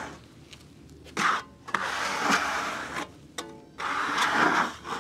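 Sawdust being cleared off a freshly milled wood slab in a few strokes, each a rough swish about a second long.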